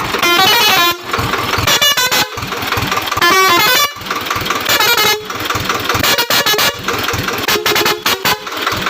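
A multi-tone air horn fitted to a tractor sounds a run of loud notes that step up and down in pitch, in short phrases broken by brief gaps.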